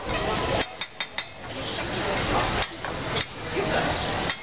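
Metal knife blade tapping against a clay crock, several sharp taps, as the sealed pot of lamb stew is struck to crack it open.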